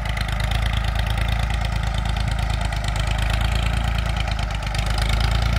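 A 1980 Ford 3600 tractor's three-cylinder diesel engine running steadily under load while it pulls a harrow. Its exhaust note comes through an aftermarket pipe-style silencer, which has spoiled the engine's original sound.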